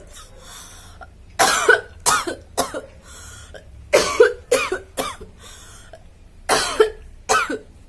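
A woman's put-on coughing: three fits of two to four hard coughs each, a couple of seconds apart.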